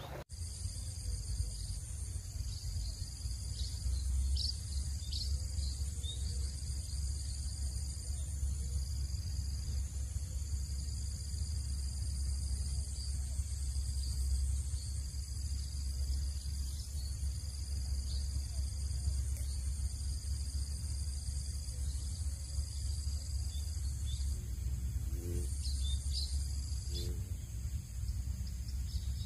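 Insects chirring in steady high-pitched pulsing trills, over a constant low rumble.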